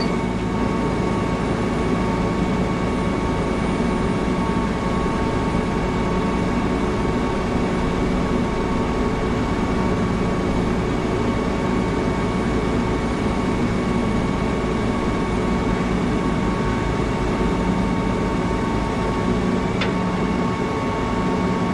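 Heavy truck engines running steadily at low revs, with a constant hum of several fixed tones. A single short click comes near the end.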